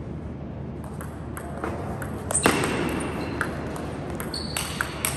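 Table tennis rally: the ball clicks sharply against the bats and the table in quick alternation, several strikes a second.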